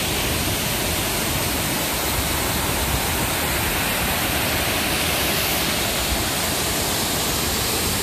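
Waterfall: a creek pouring over stepped rock ledges, giving a steady, unbroken rush of water.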